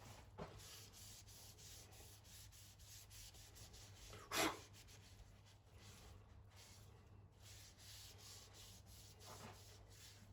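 Faint rubbing on wood in short repeated strokes, with one louder knock about four and a half seconds in.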